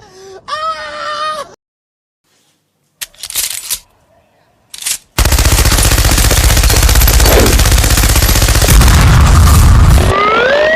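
Cartoon sound effects: a short pitched cry at the start, two brief noisy bursts, then a loud rapid rattle for about five seconds that gives way to rising whistle-like glides near the end.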